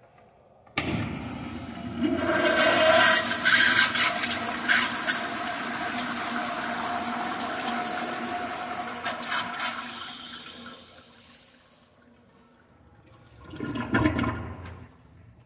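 Sensor-operated flushometer toilet flushing: a loud rush of water starts abruptly about a second in, runs for about nine seconds, then tapers off. A short, loud burst of noise follows near the end.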